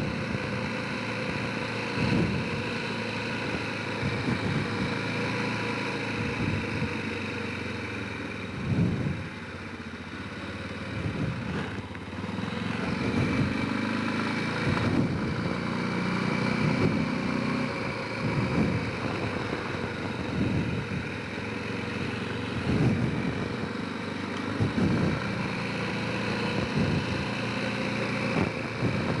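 Honda Rincon 650 quad's single-cylinder four-stroke engine running while riding, with short low thumps every couple of seconds as the quad goes over bumps.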